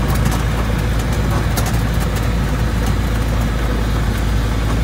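Kitfox light aircraft's engine and propeller running steadily, heard from inside the cockpit as the plane rolls along a grass strip, with a few light clicks.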